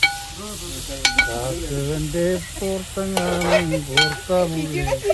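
Curry being stirred in a pan, with a few sharp knocks of the spoon against the pan and food sizzling. A voice is heard over it as well.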